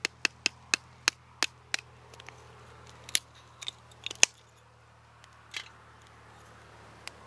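Sharp wooden clicks and knocks of small kindling sticks being handled: a quick run of about three a second in the first two seconds, then a handful of scattered ones, the loudest just after four seconds in.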